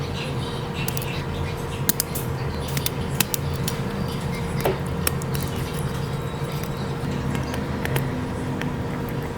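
Small hard clicks and taps of repair tools on a phone, scattered irregularly over a steady low hum.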